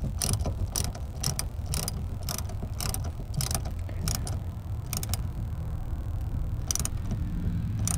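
Ratchet clicking in a run of short, irregular strokes as the battery terminal clamp is tightened to reconnect the car's battery. The clicks come a few per second at first and thin out in the second half, over a steady low rumble.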